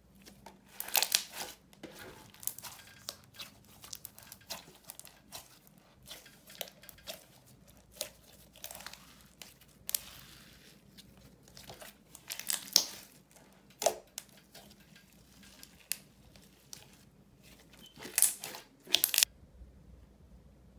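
Hands squishing, stretching and folding a translucent red slime, making irregular sticky crackles and pops. The loudest pops come about a second in, around the middle and near the end, and the sound stops shortly before the end.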